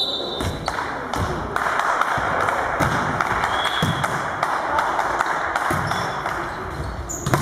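Volleyball rally in a sports hall: repeated sharp knocks of the ball being hit and players' feet on the court, with a stronger hit near the end.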